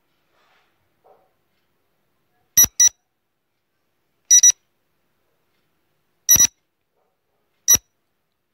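Countdown-timer beeps of a quiz sound effect: short, sharp electronic beeps about every one and a half to two seconds, the first two coming as quick double beeps, with silence between.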